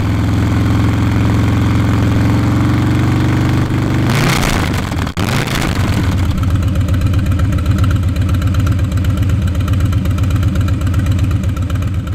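Harley-Davidson Road Glide ST's Milwaukee-Eight V-twin running through a Two Brothers Racing 2-into-1 shorty exhaust, with a steady note at first. About four seconds in comes a brief rush of noise, then a lower, evenly pulsing exhaust beat.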